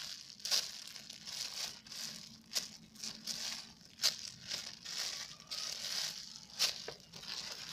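Clear plastic packaging bag crinkling as a foam hamburger squishy is squeezed and handled inside it: a run of irregular crackles with several sharper snaps.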